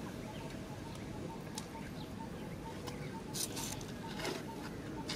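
Outdoor ambience: a steady background hiss with a faint, rapidly repeating pulsed tone, and a few brief rustles about three and a half and four seconds in.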